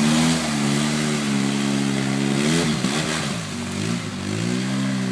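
Polaris RZR 800 side-by-side engine running under load in mud, steady at first, then dipping and rising in pitch twice as the throttle eases off and comes back on, while the tires churn slowly.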